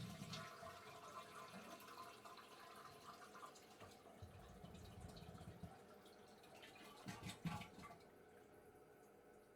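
Toilet flushing: water rushing and gurgling through the bowl, with a last surge about seven seconds in, then fading to a faint trickle.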